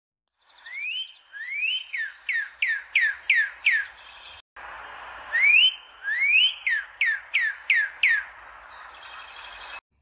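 Northern cardinal singing two phrases of its song. Each phrase opens with two rising whistles, followed by a quick run of loud falling slurred whistles, and there is a short break between the phrases.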